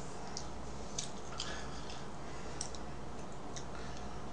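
A knife cutting into a strawberry cream cake, with a few soft, scattered clicks and scrapes over a steady low hum.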